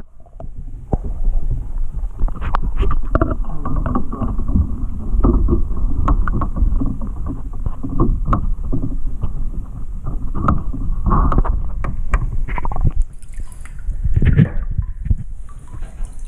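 Water sloshing and splashing in a container, with irregular knocks and handling noise throughout.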